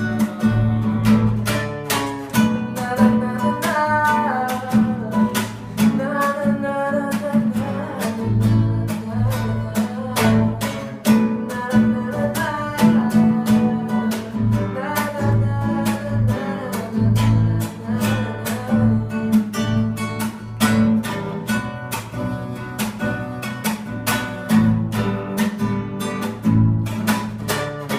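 Instrumental break of a sertanejo song: acoustic guitar strumming over bass and a steady beat, with a lead melody line on top.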